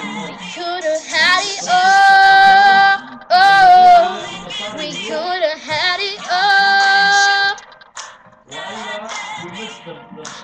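Woman singing along to a karaoke backing track, holding several long notes.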